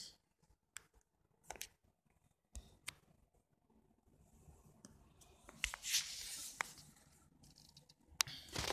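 Handling noise from the recording device being picked up and moved: a few scattered clicks and taps, then a stretch of rustling about two-thirds of the way through, and another click near the end.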